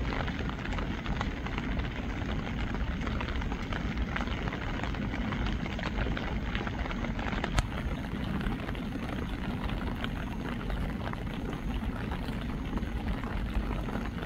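Steady rain falling: a constant hiss dotted with the taps of many individual drops, with one sharper click about halfway through.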